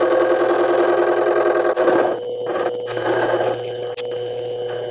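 Mini metal lathe running with its motor whining while the tool faces off the end of a stainless steel bolt. The sound drops a little about two seconds in, and there is one sharp click about four seconds in.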